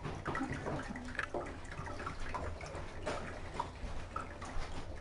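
Liquid splashing and dripping in short, irregular splashes as a kitten is dipped in a medicated dip.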